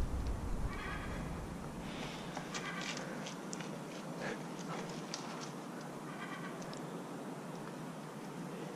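Out-of-breath breathing close to the microphone, a breath every second or few, after running. Light footsteps on paving slabs can be heard under it.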